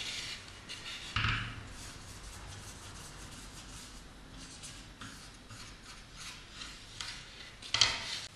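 Cloth pad rubbing quickly over carved varnished wood in short repeated strokes, applying the finish. Two louder knocks of the wooden piece being handled about a second in and near the end.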